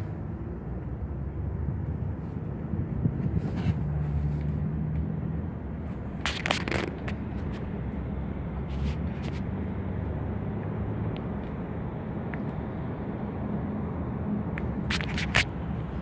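Steady low rumble inside a 2017 Toyota minivan's cabin, the vehicle and its ventilation running, with a few sharp clicks and scrapes twice, about halfway and near the end.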